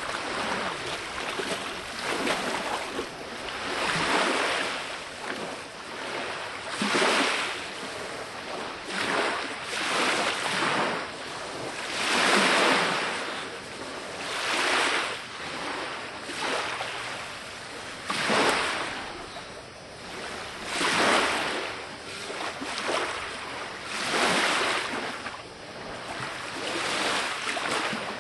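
Small lake waves washing in on the shore, a swell of rushing water about every two seconds.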